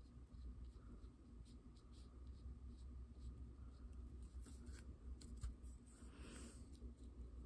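Faint, irregular scratching of a small paintbrush stroking acrylic paint onto the painting surface, over a low steady room hum.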